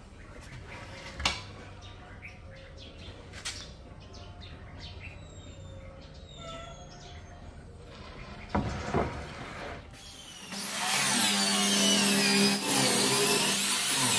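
A few sharp wooden knocks and some bird chirps, then about ten seconds in an electric power tool starts and runs loudly on wood, its pitch wavering as it works.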